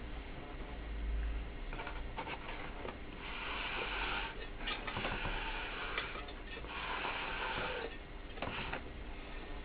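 Scraping and rubbing on a loudspeaker's metal basket rim with a cloth and a small tool, cleaning off old surround and glue residue. It comes as several scratchy bursts of about a second each, with small clicks and a low hum underneath.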